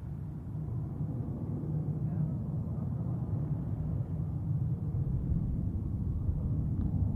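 Light propeller plane's engines droning as it takes off and climbs away: a low steady rumble that grows louder over the first couple of seconds, then holds.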